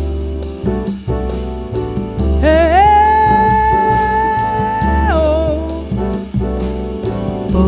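Jazz ensemble playing, with drums and a deep bass layer under a lead melody. The lead scoops up into one long high held note about two and a half seconds in, then falls away about two and a half seconds later.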